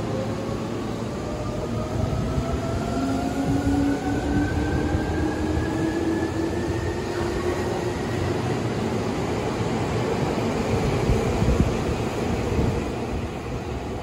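Seibu 2000 series electric train pulling out of the station: its motors whine in a steadily rising pitch as it accelerates, over the rumble of wheels on rail. The sound fades near the end as the train moves away.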